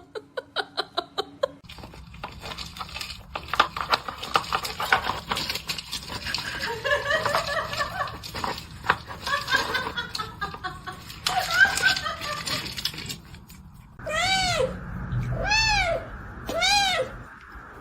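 Domestic cat meowing, ending in three long rise-and-fall meows about a second apart, with clattering and some laughter earlier on.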